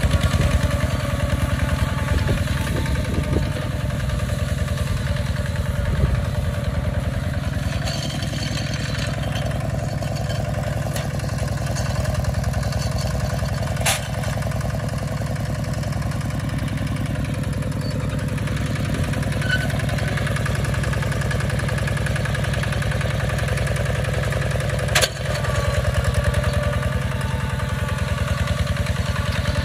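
Kubota RT140 walking tractor's single-cylinder diesel engine running steadily under load as it pulls a plough through dry soil. Two sharp clicks cut through, one about halfway and one later on.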